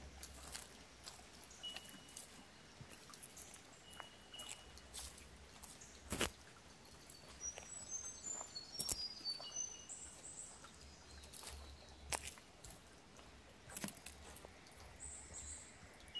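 Footsteps on a forest track, irregular clicks with a few louder steps, while birds call: brief high notes here and there and a run of short whistled notes stepping down in pitch about halfway through.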